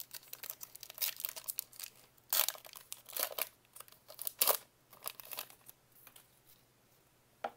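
Plastic wrapper of a Gypsy Queen baseball card pack being torn open by hand and crinkled, a run of sharp crackles with the loudest tears near the middle, dying away about five and a half seconds in as the cards come out.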